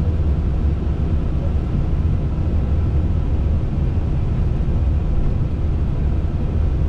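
Steady low rumble of cabin noise inside an Airbus A320-family airliner's cockpit while it taxis, from the engines at idle, the airflow and the rolling gear.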